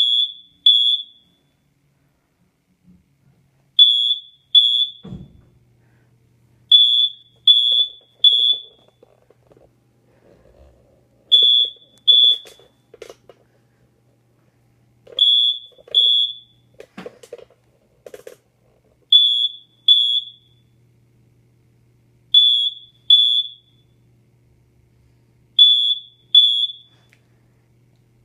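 DuPont smoke alarm chirping over and over: short, loud, high beeps in pairs, now and then three, repeating every three to four seconds.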